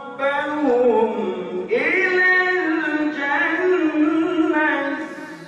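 Unaccompanied melodic Quran recitation, Surah Az-Zumar verse 73, in a single voice with long drawn-out notes that slide between pitches.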